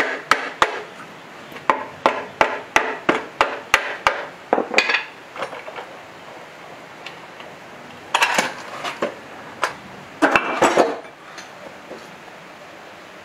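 Hammer striking the cast-iron timing gear cover of a rusty diesel engine block, about a dozen quick blows in the first five seconds to knock the stuck cover loose. Later come two short bursts of metallic clattering as the loosened cover is worked off the gear housing.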